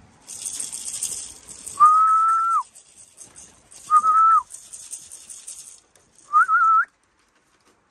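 A person whistling to call racing pigeons into the loft: three held, level whistles, the last one warbling. Under them runs a high rustling rattle that stops about six seconds in.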